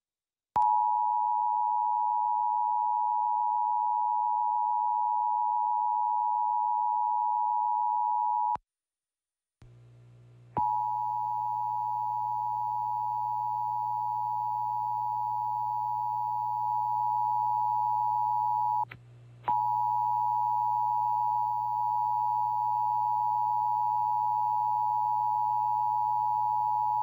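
Emergency Alert System two-tone attention signal (853 Hz and 960 Hz together), a steady, piercing dual tone. It sounds for about eight seconds and cuts off, then after a pause it comes back over a low hum for about eight seconds, breaks for half a second, and starts again.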